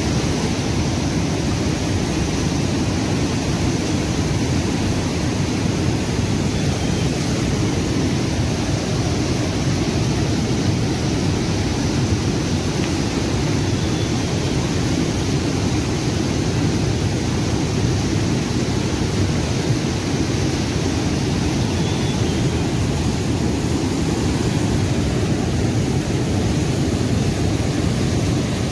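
Whitewater rapids of a fast mountain river rushing over boulders: a steady, loud roar of water that does not let up.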